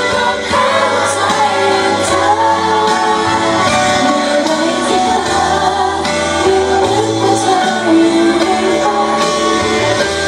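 A woman singing a Thai song live into a microphone over instrumental accompaniment, amplified through a PA.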